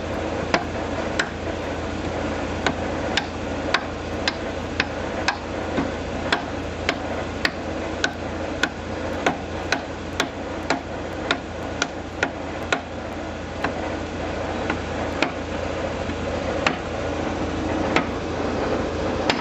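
Rubber mallet knocking repeatedly on a metal wheel hub to seat it on the tractor's axle: a steady run of dull blows, about two a second, spacing out toward the end.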